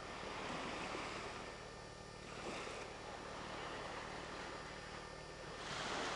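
Wind and sea wash: a steady hiss that swells about three times, loudest near the end.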